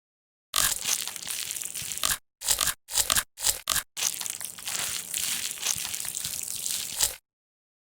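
Slime being squeezed and pressed by hand, heard as several short cuts separated by dead silence, the longest running about three seconds.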